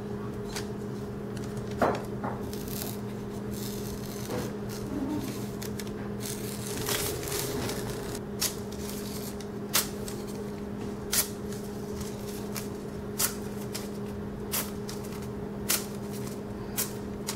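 Phonebook paper being push-cut again and again on the very sharp edge of a Kershaw Skyline clamped in a Wicked Edge sharpener: about ten short, crisp snicks, one every second or so. A quiet cut like this is the sign of a sharp, refined edge. A steady low hum runs underneath.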